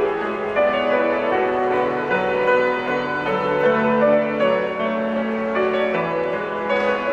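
Grand piano being played: a slow piece of held, overlapping notes and chords.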